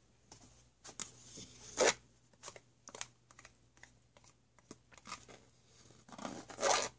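A butter knife slicing a stick of butter and dropping the pieces into a plastic mixing bowl of flour: scattered small clicks and taps, with two louder short scrapes, one about two seconds in and one near the end.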